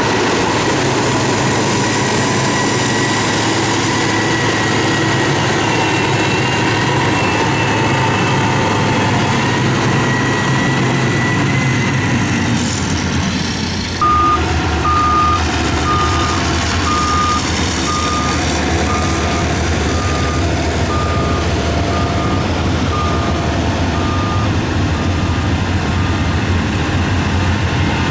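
Heavy road-construction machinery with its engine running steadily. About halfway through the sound changes abruptly and a reversing alarm starts beeping, about one and a half beeps a second.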